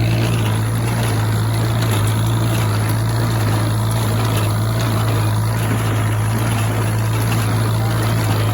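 Farmall H tractor's four-cylinder engine running steadily under load as it pulls and drives an IH 430 small square baler, the baler's works clattering along with it in a constant drone.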